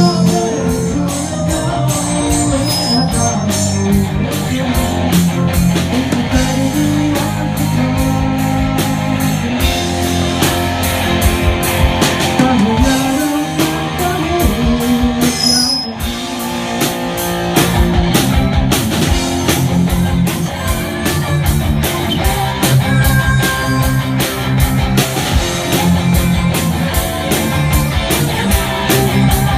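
A band playing a rock-style song on drum kit and guitar with a steady beat, with some singing.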